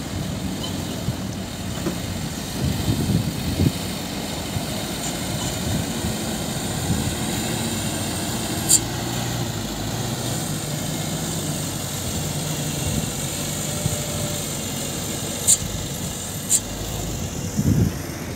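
Diesel engine of a loaded light dump truck running steadily as it comes down a dusty dirt track, with three short sharp clicks in the second half.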